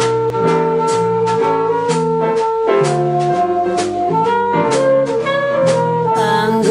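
Jazz band instrumental introduction: held horn chords over a steady drum beat. A singer's voice comes in near the end.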